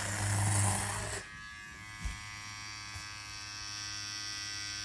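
Rovra hair trimmer with zero-gapped blades running with a steady electric buzz. For about the first second it cuts through hair with a dense rasping hiss, then it keeps running off the hair.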